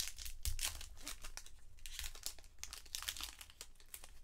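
Crinkling and tearing of a 2020 Bowman baseball card pack's wrapper as it is opened by hand: a rapid, irregular crackle of many small crinkles.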